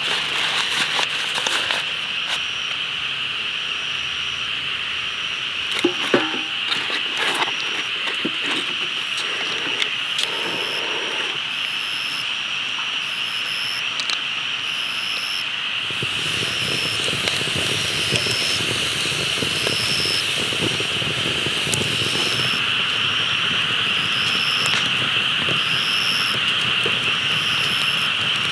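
Insects droning steadily outdoors, with a short high chirp repeating about once a second. A few light knocks come about six seconds in, and from about halfway a low rumble like road traffic joins underneath.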